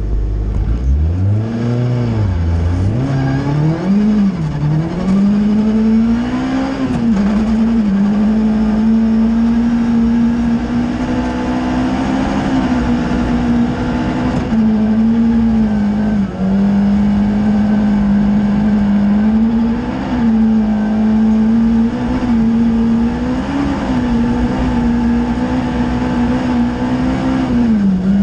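Ford Fiesta R2 rally car's engine heard from inside the cabin, accelerating hard with the revs climbing and dropping back several times over the first several seconds, then held at high revs with a few brief dips.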